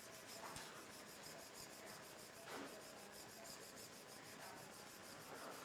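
Near silence: a low steady hiss with a few faint, brief sounds.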